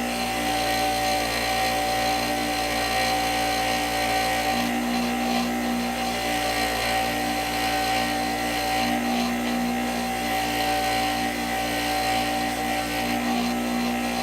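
Bench grinder running with a wire wheel, brushing rust off steel caliper slide bolts. A steady motor hum under a scratchy hiss of wire bristles on metal.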